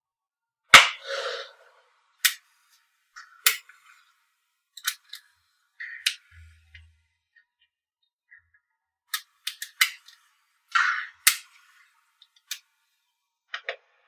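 Small magnetic balls clicking and snapping together as they are pressed into a block by hand. It comes as a string of sharp, irregular clicks, some followed by a short rattle. The loudest click, with a rattle, is about a second in.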